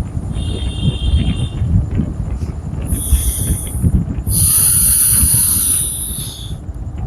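Breath hissing through the nose during pranayama: a short hissing breath about three seconds in, then a longer, louder one from about four to six and a half seconds, over a steady low rumble.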